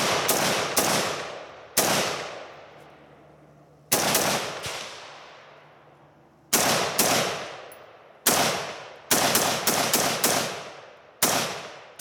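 Armalite SPR Mod1 AR-15 firing 5.56 rounds semi-automatically: more than a dozen shots at an uneven pace, some in quick strings and others after pauses of up to about two seconds. Each shot is followed by a long, fading echo.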